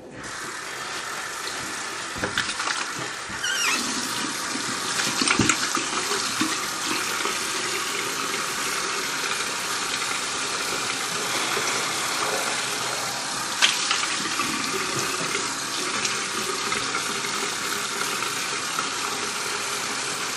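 Bathroom tap running steadily into a sink while hands wash under it, with a few splashes and small knocks in the first few seconds and one more about two-thirds of the way through.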